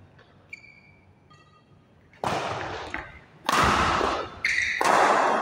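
Two faint short squeaks of shoes on a badminton court mat, then three loud rushing noise bursts of about a second each in the last three seconds.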